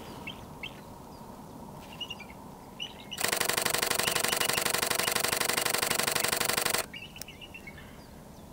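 Canon R5 shutter firing in a rapid continuous burst for about three and a half seconds, starting about three seconds in. Before and after the burst come short, high chittering calls from a bald eagle.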